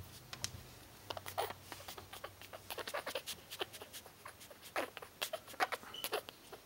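Irregular scratchy rustling and clicking close to the microphone as a young puppy is handled and lifted out of a blanket-lined box, with a short high-pitched squeak right at the end.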